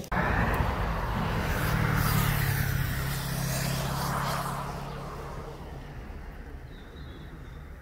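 A car passing close by with a rushing tyre-and-engine sound, loudest about two to four seconds in, then fading away.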